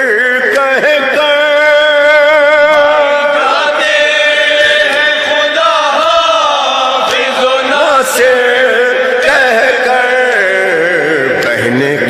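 Noha lament chanted with the voice alone: a wordless, wavering, ornamented melody over a steady held drone.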